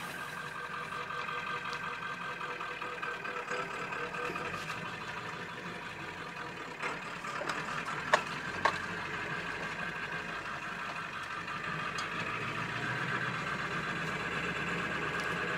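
Ford F-250 Power Stroke diesel engine running steadily as the rebuilt truck sets off, heard from inside the cab. Two sharp clicks come a little past eight seconds in, and the engine grows slightly louder near the end.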